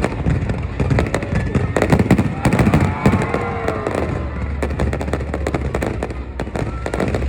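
Aerial fireworks display: a dense run of bangs and crackling bursts, one after another, over a low rumble.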